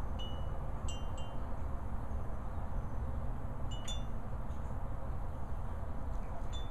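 Wind chimes tinkling: a handful of short, high ringing notes in scattered clusters, over a steady low background rumble.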